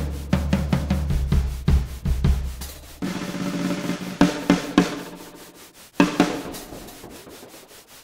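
Drum kit played with sticks: quick strikes on snare and toms over a low steady tone for about three seconds, then sparser hits that ring out. A last strong hit about six seconds in decays away toward the end.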